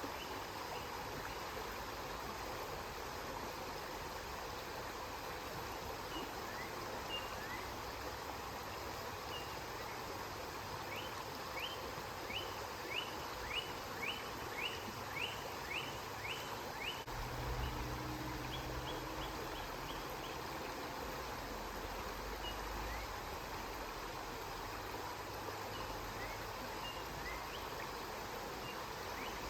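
River water flowing steadily. A bird repeats short, falling chirps, quickest through the middle at about two a second, and a low rumble sounds for a few seconds past the middle.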